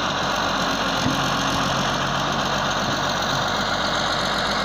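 Diesel engine of a Hyundai Robex wheeled excavator running steadily as the machine digs wet sand from a pit.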